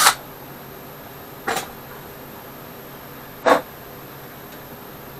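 A cordless drill boring into the tractor dash cuts off right at the start. Then come two short knocks, about a second and a half and three and a half seconds in, the second louder, as the dash and parts are handled, over a faint steady hum.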